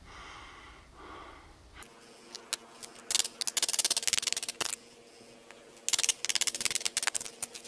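A wooden block being levered apart with a hand tool, splitting along the grain: two bursts of rapid crackling and snapping as the fibres tear, each lasting about a second and a half.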